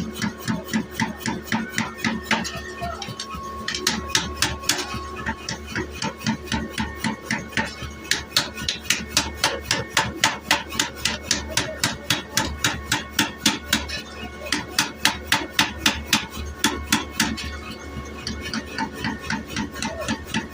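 Power hammer striking a workpiece in a fast, even run of blows, about five a second, with louder stretches where it hits harder. A steady hum runs underneath.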